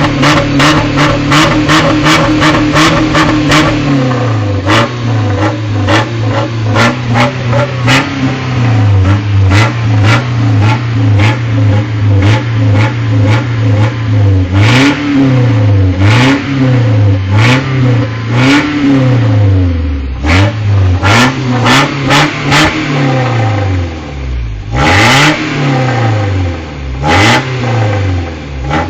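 Truck engine being revved hard by foot on the gas pedal: at first held at high revs and stuttering several times a second, then blipped up and let fall over and over about once a second, dropping back nearly to idle twice in the second half.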